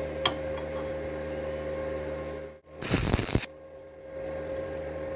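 Stick welder humming steadily, then a short burst of crackling electric arc lasting about half a second near the middle, as the welding rod strikes and burns briefly on the steel tube.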